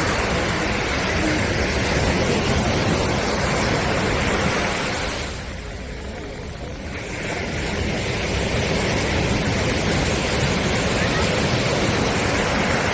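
Sea surf washing onto a beach: a steady rush of breaking waves that eases for a couple of seconds around the middle, then builds up again.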